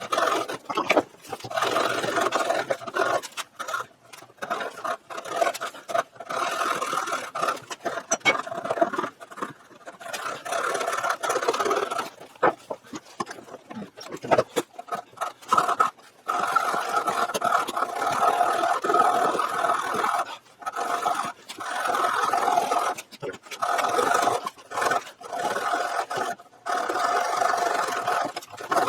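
A hand tool scraping through wood in repeated back-and-forth strokes, cutting a rabbet into a board by hand.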